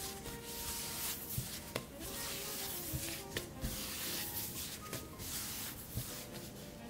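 Baguette dough being rolled and pinched by hand on a floured board: a dry rubbing of hands and dough against the board that swells and fades with each stroke, with a few soft thumps, over faint background music.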